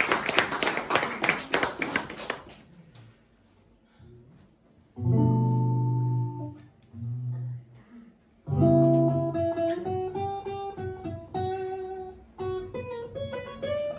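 Applause fading out over the first couple of seconds, then a pause. A low sustained note sounds twice, and about eight and a half seconds in an acoustic guitar starts playing the opening of the next song.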